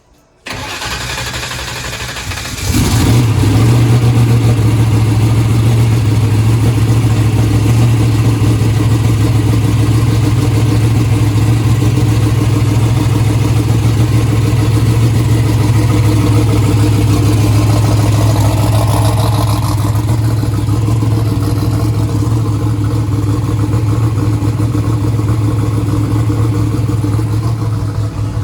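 Turbocharged drag-car engine cranking on the starter for about two seconds, then catching and settling into a loud, steady idle while still cold.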